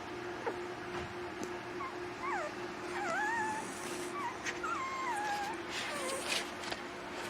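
Young puppies whimpering and whining: short, wavering high cries, several overlapping, over a steady low hum.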